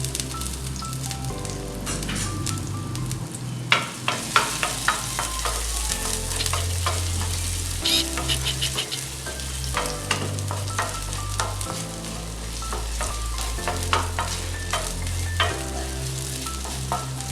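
Ginger sizzling in hot oil in a pan, with a spoon scraping and clicking against the pan from about four seconds in. Soft background music plays underneath.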